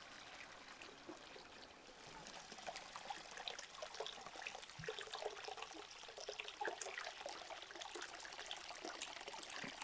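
Faint trickling and dripping of liquid, with many small scattered ticks.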